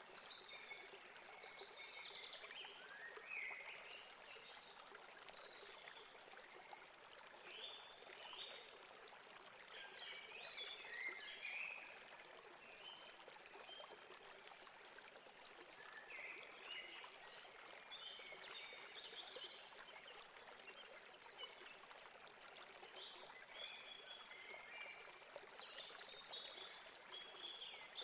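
Stream of water running steadily over rocks, with small birds chirping in several short spells over it.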